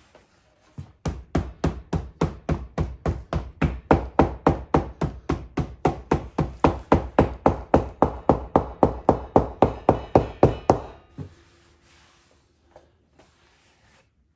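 Steady hammering on the wet seat leather stretched over a saddle tree, about four even taps a second for roughly ten seconds, then stopping. The leather is being worked down and back to shape the seat.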